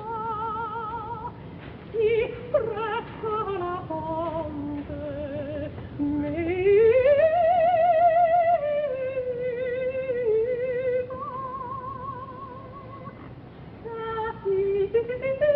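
Soprano singing an operatic aria with wide vibrato, moving through runs of notes and sliding up to a long held high note about six seconds in. It is a 1958 live recording with a muffled, narrow sound.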